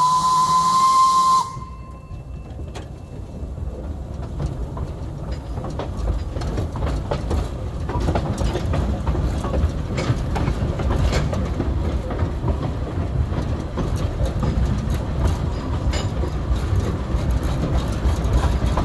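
Steam whistle of the wood-fired narrow-gauge tank engine "Zambezi", a 1912 John Fowler 0-4-2T, sounding one steady note that cuts off about a second and a half in. Then the locomotive running, heard from the footplate: a low rumble and rattle with scattered clicks of wheels on rail, growing louder over the next few seconds.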